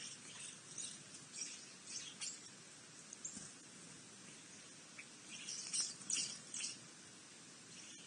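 Small birds chirping in short, high calls, a cluster in the first couple of seconds and a louder run about five to six and a half seconds in.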